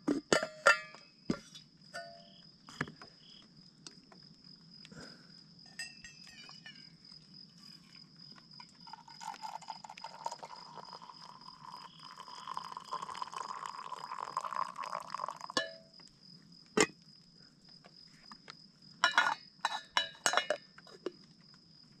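Metal lid and mug clinking and clicking as an insulated travel mug is opened, then tea poured from a metal camping kettle into the mug for about six seconds. A few more sharp clinks of metal on metal follow near the end.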